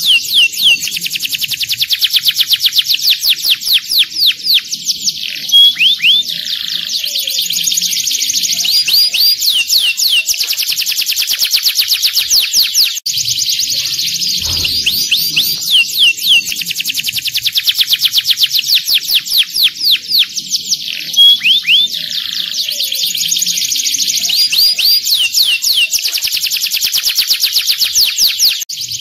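Domestic canary singing a long song of fast rolling trills and rapid repeated high chirps. The song breaks off for an instant about halfway through and starts again.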